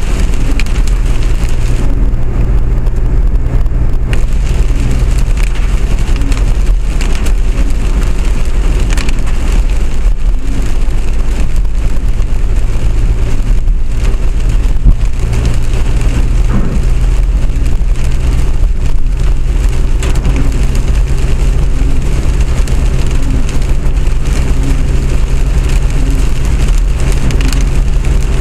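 Steady running noise of a moving vehicle heard from inside, with a constant low hum, and rain on the outside.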